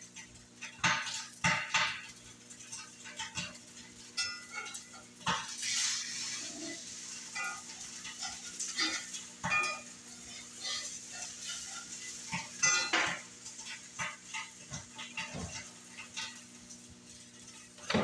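Cookware clatter: a metal utensil knocking and scraping in a frying pan on the stove, with irregular clinks and clanks.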